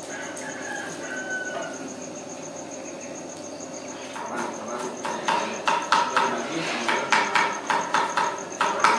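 Crickets trilling steadily in the background. From about four seconds in, loud sharp knocking starts, about three strikes a second, like something being struck hard and repeatedly.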